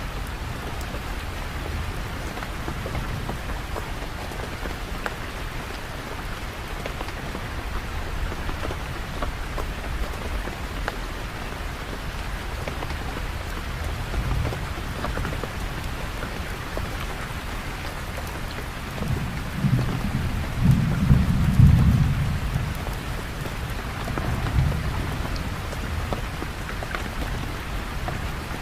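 Steady rain falling, with a roll of thunder that swells about two-thirds of the way through, peaks briefly, then fades, and a smaller rumble just after.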